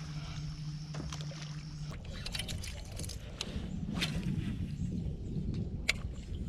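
Water sloshing around a fishing kayak, with scattered sharp clicks and knocks of handling gear. A steady low hum runs until about two seconds in, then stops.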